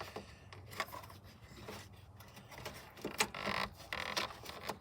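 Faint scattered clicks and a brief rustle about three and a half seconds in, from hands handling a small object, here a removed headlight bulb.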